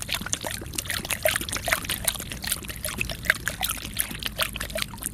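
Water running from a faucet and splashing as a German Shepherd puppy laps from the stream: a rapid, irregular patter of splashes over the steady run of the tap.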